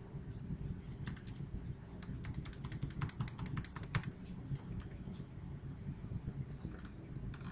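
Computer keyboard typing: quick runs of key clicks, thickest in the middle and thinning out over the last couple of seconds, over a low steady background hum.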